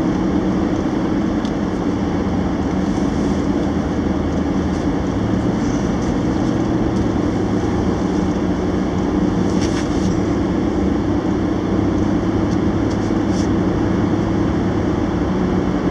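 Steady road and engine noise inside a moving SUV's cabin: a continuous drone with tyre rumble, its lowest hum stepping up slightly in pitch about five seconds in.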